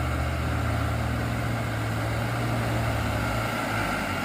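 Truck's diesel engine pulling under load up a slippery incline, a low steady drone whose tone changes about three and a half seconds in.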